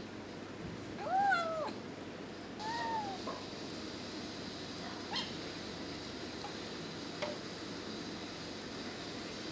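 Kitten meowing twice: two short high meows that rise and fall in pitch, about a second and a half apart. A couple of faint clicks follow later.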